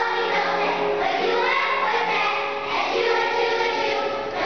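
A children's choir singing together, holding long notes that change pitch every second or so.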